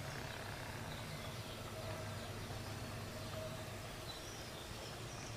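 Outdoor ambience: a steady low rumble with faint bird chirps now and then.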